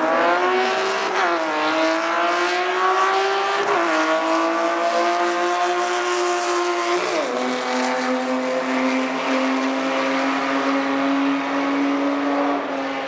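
Drag-racing car engine under hard acceleration. Its pitch climbs, then drops sharply at gear changes about 1, 4 and 7 seconds in, and holds nearly level before fading near the end.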